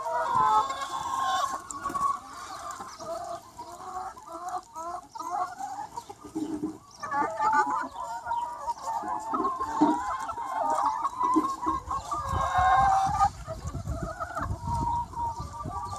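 A large free-range flock of chickens clucking and calling over one another, many short overlapping calls at once. A low rumble joins in near the end.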